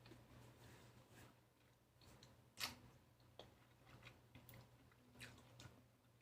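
Faint mouth sounds of chewing lychee: soft, wet clicks, with one a little louder about two and a half seconds in.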